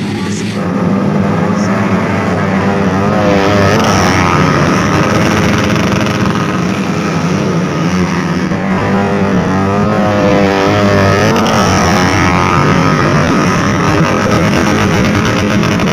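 A pack of modified two-stroke and four-stroke underbone race motorcycles revving hard as they pull away from the start line, their engine pitch wavering up and down.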